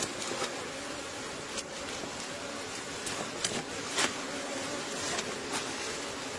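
Bees buzzing steadily around an opened log hive, with a metal spoon scraping and clicking against the honeycomb and wooden hive wall several times, the loudest click about four seconds in.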